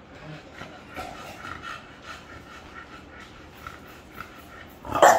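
Micro bully dogs in their kennels whining and panting in short repeated pulses, then one short loud bark near the end.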